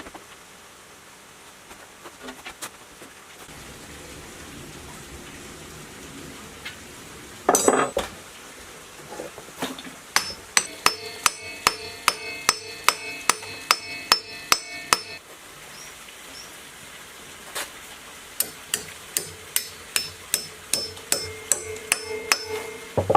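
Hammer striking a metal part that rings, in two runs of steady blows at about two a second, after one heavier knock. The work is part of reassembling the motor.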